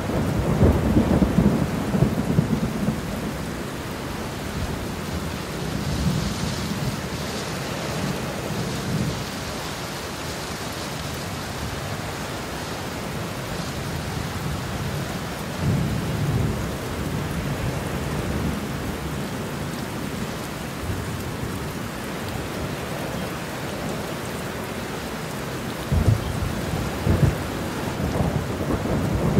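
Steady rain falling, with several low rolls of thunder rumbling through it, the strongest at the start and near the end.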